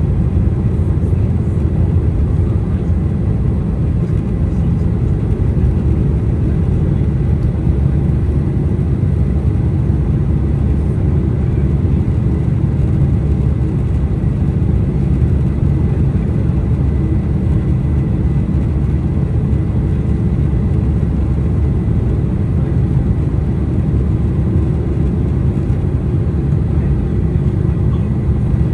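Steady, loud low rumble of a Boeing 747-400's jet engines and airflow heard from inside the passenger cabin, holding the same pitch and level throughout.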